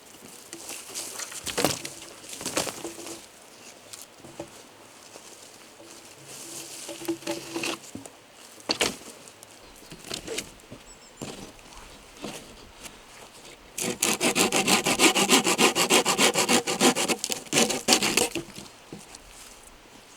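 Wood being cut by hand with a saw: a few scattered knocks and scrapes, then about 14 seconds in a loud run of quick, even back-and-forth saw strokes lasting about four seconds before it stops.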